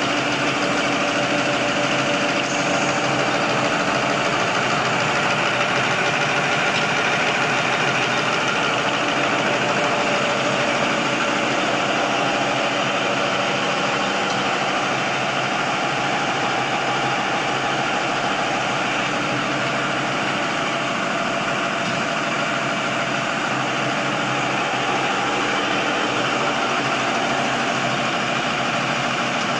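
XY-OQ-7000A automatic napkin tissue folding machine running steadily: a continuous mechanical noise from its rollers and folding mechanism, with a faint hum and no breaks.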